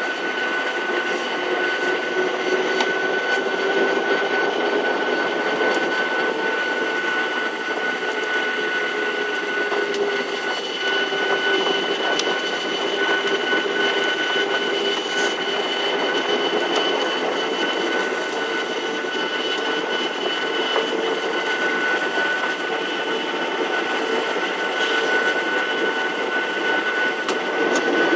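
Boeing 737-800's CFM56 jet engines running at low power, heard inside the cabin: a steady rush with high held tones and a lower hum that creeps slightly up in pitch.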